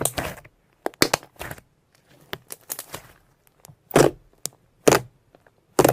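Slime being squeezed and worked by hand, making sharp pops and clicks. The three loudest come about a second apart near the end.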